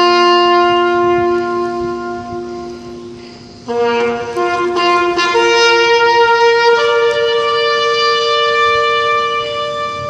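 A lone bugle sounding a slow ceremonial call: long held notes that step up and down among a few pitches, with a fresh phrase about four seconds in and a long high note held from about seven seconds in until near the end.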